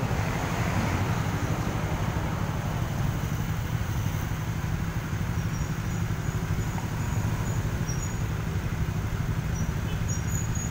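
Motorcycle engine idling steadily with a fast, even low thrum while stopped at a red light.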